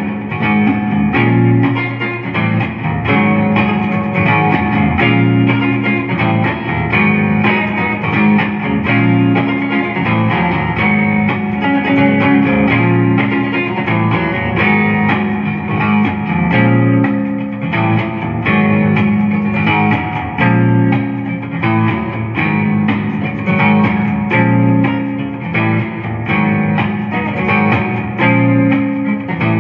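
Clean electric guitar, a Jonah Custom Deluxe '69, played through a Fender Champion 40 amp with a little reverb. The playing is continuous, with many notes picked in quick succession.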